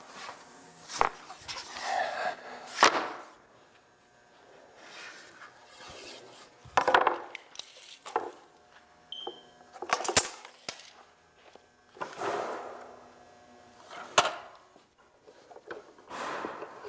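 Pine boards being handled on a saw table: a string of separate wooden knocks and clatters a few seconds apart, with brief sliding scrapes between them as the boards are set down and pushed into place.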